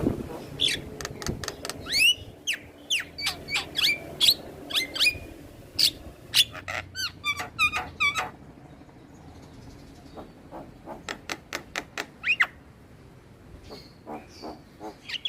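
Javan myna (jalak kebo) singing in a rapid run of short, sharp whistles and chattering notes that glide in pitch. It pauses about eight seconds in, then gives a few more calls and some fainter notes near the end.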